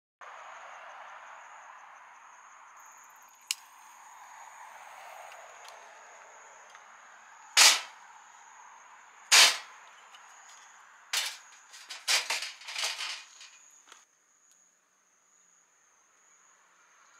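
Several sharp bangs: two loud ones about two seconds apart, then a rapid cluster of cracks. Under them runs a steady rushing hiss with a thin, constant high-pitched tone.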